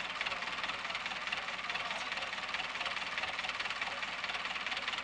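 Tractor's diesel engine running steadily with a fast, even knock while hauling a houseboat up the shore on a cable.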